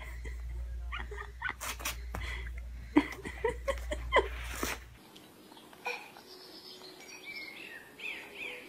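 Close-up dog and baby sounds: short clicks, sniffs and small vocal sounds over a low steady hum. About five seconds in it cuts to a quieter stretch with a few faint high chirps.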